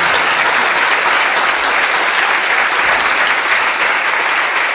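Studio audience applauding, a steady dense clapping.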